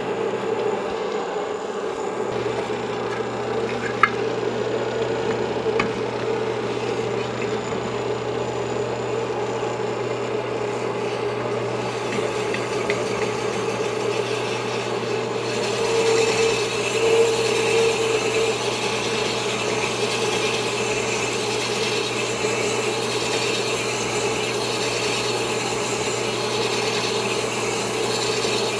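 Sunnen honing machine running with a steady motor hum as its hone mandrel spins. At first the stones are being trued in a truing sleeve. From about halfway the two-stroke motorcycle cylinder is stroked back and forth over the mandrel, and the abrasive stones rasp against the cylinder bore with a slow pulsing rhythm.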